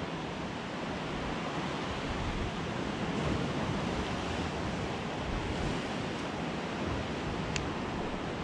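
Steady wash of wind and sea water around a small boat, with a single brief click a little before the end.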